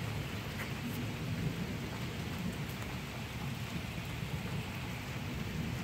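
Thunder rolling as a long, low rumble under the steady hiss of rain falling.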